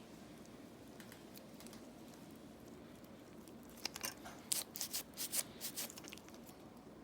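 Metal pedicure tool cutting and scraping thick dry skin from a foot: a quick run of sharp, crisp clicks lasting about two seconds, starting a little past halfway, over faint room hiss.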